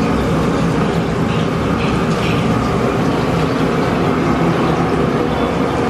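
Steady loud rumble of a gas burner flame under an iron kadai, with peanut pakodi frying in the hot oil.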